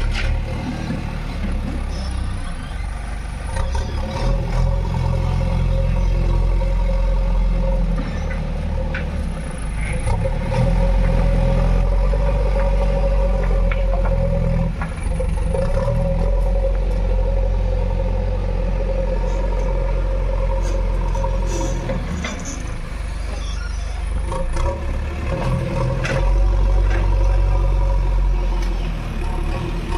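JCB 3DX backhoe loader's diesel engine working, its speed rising and falling every few seconds as it pushes soil, with occasional short clanks.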